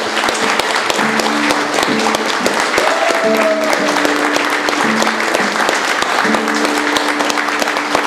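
Audience clapping loudly and continuously, with an amplified acoustic guitar playing held chords that change every second or so, starting about a second in.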